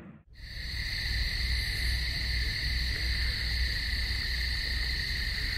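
Cicadas shrilling in a steady chorus, two unbroken high tones, over a low rumble. It starts abruptly a fraction of a second in.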